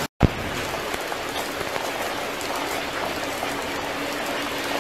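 Steady rushing hiss of heavy rain and floodwater runoff, with a brief thump just after the start.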